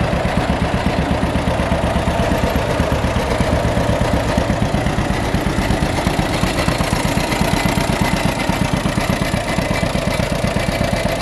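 John Deere B tractor's two-cylinder engine idling with a steady, even putt-putt pulse.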